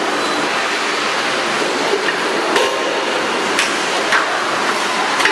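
Injection moulding machine running with a steady noisy hum while the crate mould opens, with several sharp clacks from about two seconds in as the mould parts and the crate is ejected.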